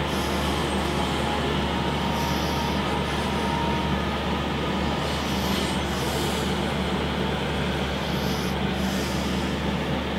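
A steady droning hum with hiss, unchanging throughout. Over it comes an occasional soft rustle of paracord strands being pulled through and snugged down.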